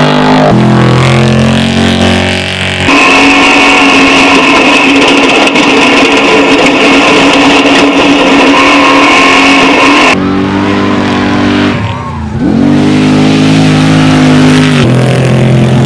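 Off-road trophy truck engine at high revs, with hard acceleration. A long steady high-revving stretch fills the middle; about three quarters through, the revs drop sharply and then climb again.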